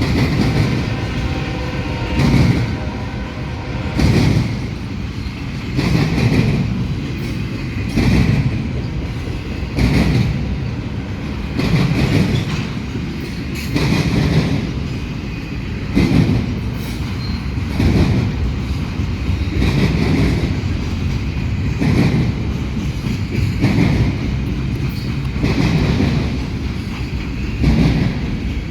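Railroad cars rolling past, the wheels thumping over rail joints in a regular beat about once every two seconds.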